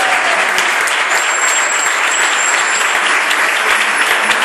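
Congregation applauding, a steady dense clatter of many hands clapping.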